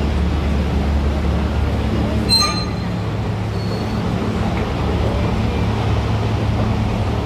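Steady low machine hum of a subway station's escalator and machinery. About two seconds in, one brief high-pitched ringing tone sounds.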